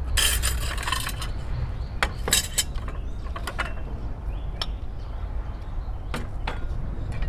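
Dishes and utensils being handled: a short noisy burst about a second long at the start, then scattered light clinks and knocks.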